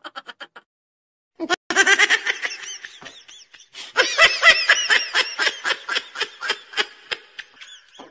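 A woman laughing hard in rapid, high-pitched ha-ha pulses, in long fits after a short pause about a second in; the laughter cuts off suddenly at the end.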